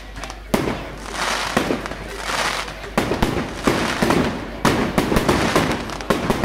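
Aerial fireworks going off: sharp bangs from about half a second in, coming thick and fast in the second half, with crackling between them.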